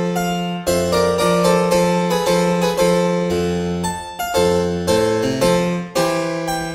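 Background keyboard music, harpsichord-like: a steady run of plucked notes and chords, each starting sharply and dying away.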